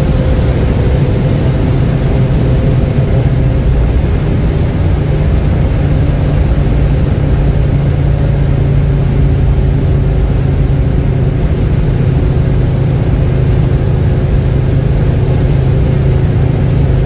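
1971 Chevrolet Chevelle driving at a steady cruising speed, its engine drone and road noise heard from inside the cabin.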